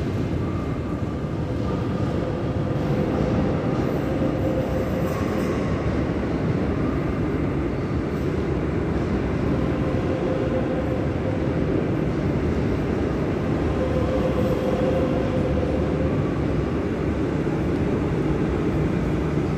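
Madrid Metro trains in an underground station: a steady rumble and hum, with a faint whine that comes and goes. Near the end a second train pulls in on the other track.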